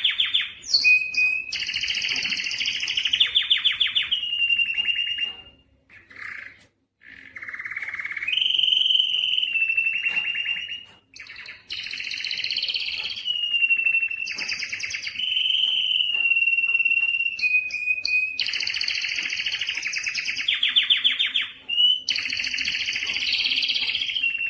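Spanish timbrado canary singing: phrases of rapid trills alternating with held high notes, with short breaks about six and eleven seconds in.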